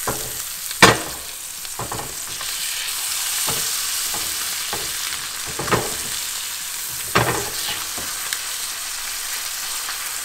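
Blackened fish fillets frying in butter and olive oil in a cast iron skillet, with a steady sizzle. Several sharp clicks and scrapes of a metal slotted spatula on the pan as the fillets are flipped, the loudest about a second in.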